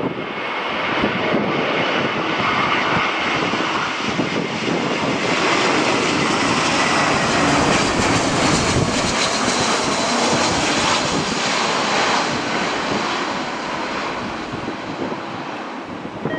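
Jet airliner's engines rushing as it passes on a landing approach, growing louder to a peak about halfway through and then fading.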